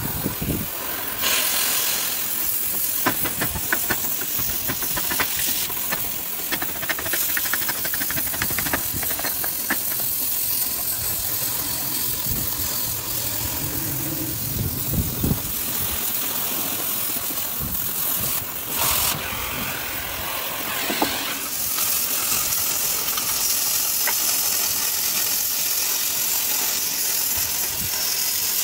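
Oxy-fuel gas cutting torch hissing steadily as its flame cuts through thick steel plate, throwing sparks and slag. There is a stretch of crackling a few seconds in.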